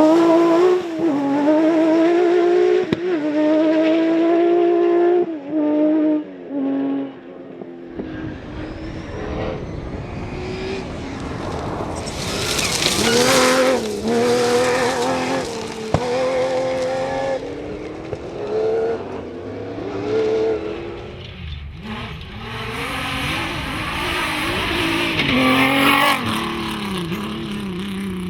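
Rally cars driven hard on a stage, engines rising and falling in pitch through gear changes and lifts off the throttle. Loud rushes of tyre noise come about 12 and 25 seconds in.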